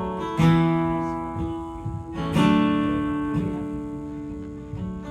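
Acoustic guitar playing a song's intro: full chords strummed about every two seconds and left to ring out between strokes.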